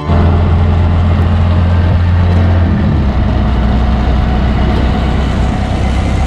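Auto-rickshaw engine running steadily under way, heard from the passenger seat with a constant hiss of road noise. Its low drone drops slightly in pitch about three seconds in.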